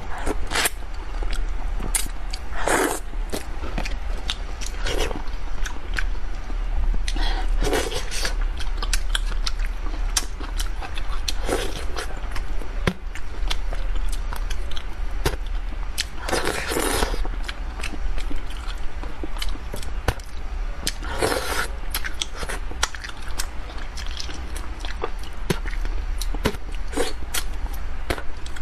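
Close-miked wet chewing and lip smacking of a person eating braised carp, picking the flesh off the bones, with many small clicks and a few longer, louder mouth noises now and then.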